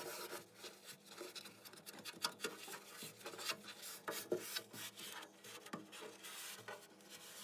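Scrubbing at grease stains on a kitchen surface: a run of quick, irregular, scratchy rubbing strokes.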